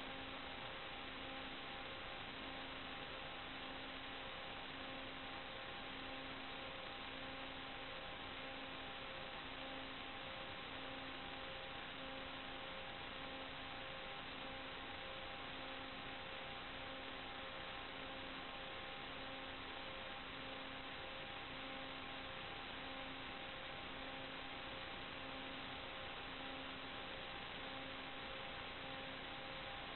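Electronic hiss with a few constant hum tones and a lower tone beeping on and off about once a second, the empty audio channel of an analog FPV video link picking up interference rather than any sound from the aircraft.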